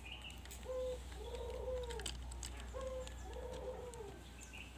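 A bird calling over and over, about once a second, each call a short level note followed by one that rises and falls. Faint clicks of plastic toy pieces being handled can be heard under it.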